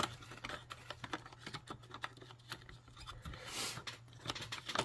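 Faint handling noise from hands on an SBE Console II CB base radio: scattered small clicks and rubbing, over a steady low hum, with a brief hiss about three and a half seconds in.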